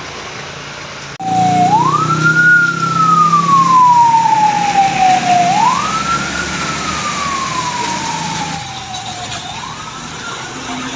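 A wailing siren, starting suddenly about a second in: each cycle jumps quickly up in pitch, then slides slowly down, repeating about every four seconds, three times. A vehicle engine runs under it.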